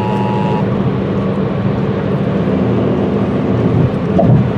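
End of an Emergency Alert System attention signal, two steady tones sounding together, which cuts off about half a second in. Under it, and louder, a steady rumbling noise runs on.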